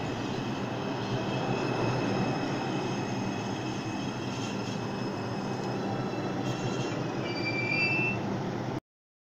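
New York City Subway train rolling along the platform as it slows to a stop, with a steady rumble and a faint high whine. Short high-pitched brake and wheel squeals come near the end, then the sound cuts off suddenly.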